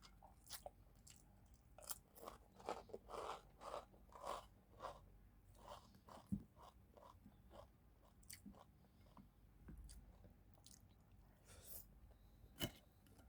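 Close-miked chewing of crunchy food: a run of crisp crunches, two or three a second, then fewer and softer chewing sounds, with one sharp click near the end.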